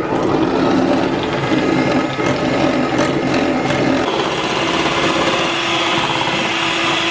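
Electric hand mixer running, its beaters whipping cold whipping cream in a glass bowl toward stiff peaks. The sound settles into a steadier, even hum about four seconds in.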